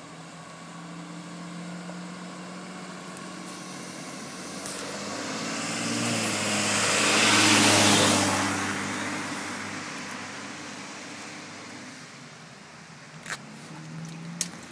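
A van drives past on a flooded road. Its engine hum and the hiss of its tyres through standing water build to a peak about halfway through, then fade as it moves away. Two short knocks come near the end.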